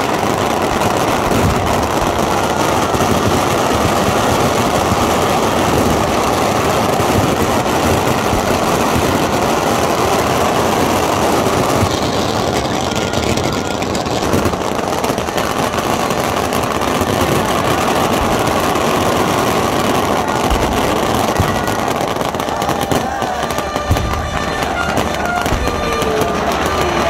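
Aerial fireworks crackling and banging continuously.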